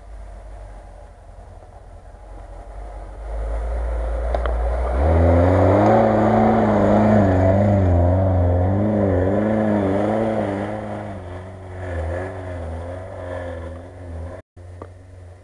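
Lada Niva engine pulling hard up a snowy track, its revs rising and falling about once a second, getting louder as it passes close and then fading as it drives away.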